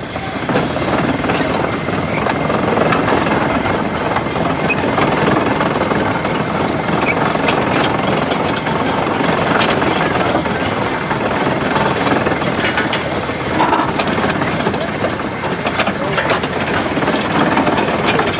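1909 20-horsepower Case steam traction engine running as it gets underway, a steady noisy hiss of steam and running gear with many small knocks and clanks through it.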